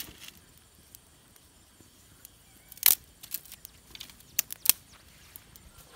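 Dry twigs and branches snapping and cracking, with light rustling: a handful of sharp cracks, the loudest about three seconds in and another pair near the end.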